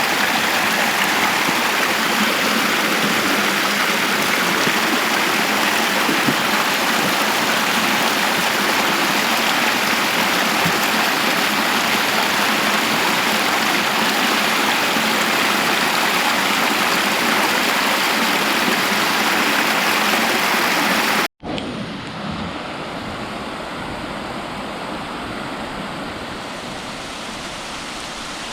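Stream water rushing steadily beneath frozen ice. About 21 seconds in it cuts off abruptly and resumes as a quieter, more muffled flow.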